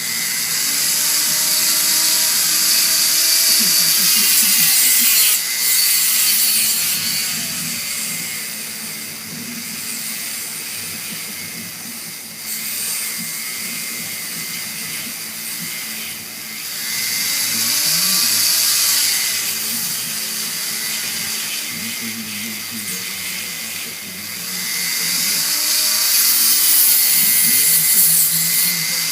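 Small high-speed rotary tool grinding into a plastic crankbait, its pitch rising and falling as it bites in and eases off. It runs loudest at the start, around the middle and near the end.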